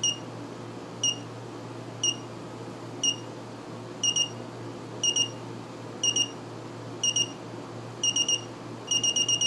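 Clapboard-shaped digital alarm clock's alarm going off: a high electronic beep once a second, turning to pairs of beeps about four seconds in, a burst of three near the end, then a fast unbroken run of beeps.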